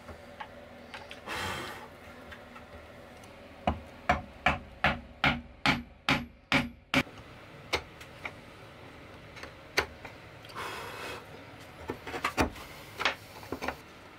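Chisel worked into cherry wood to cut a mortise: a quick run of about nine sharp taps on the chisel, then scattered single taps, with two brief scraping swells of the blade paring wood.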